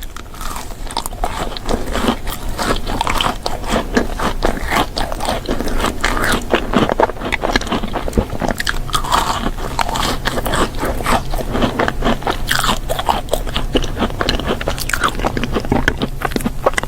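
Close-miked eating: repeated bites and chewing with crunching and scraping, in a dense, irregular run of small clicks and crackles.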